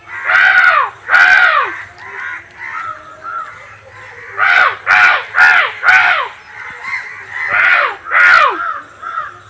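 A series of harsh crow caws, each falling in pitch. Two loud caws come at the start, four in quick succession about halfway through and two more near the end, with fainter caws between them.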